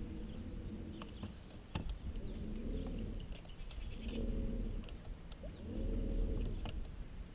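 Bow-mounted electric trolling motor humming in three short spurts, each rising and falling away, as it is bumped on and off to hold the boat along the bank.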